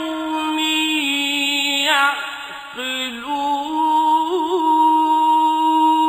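A male reciter chanting the Quran in a melodic, drawn-out style. He holds the vowel of "li-qawmin" on long sustained notes, with a brief pitch dip partway through and a short quavering ornament a little after four seconds in.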